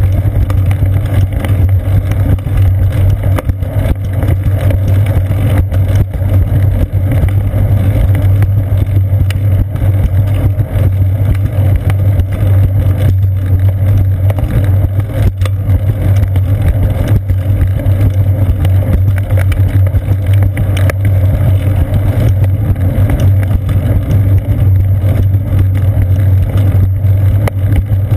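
Steady low rumble of a bicycle rolling along a concrete path, picked up through a seat-post-mounted GoPro Hero 2 as frame and road vibration, with a constant low hum underneath.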